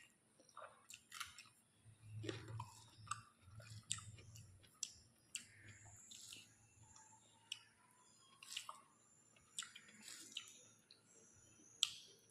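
Close-miked chewing of a mouthful of rice and chicken curry, with wet mouth smacks and sharp clicks throughout and a low hum for a few seconds near the start.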